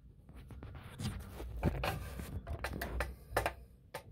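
Terrarium giving off a steady low rumble, described as "roaring", with scattered small clicks and taps from handling as a mealworm is put in for the leopard gecko.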